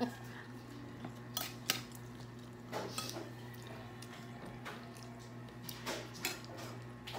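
Cutlery and dishes clinking at a meal table: a few scattered light clicks and taps of spoons against bowls and plates, over a steady low hum.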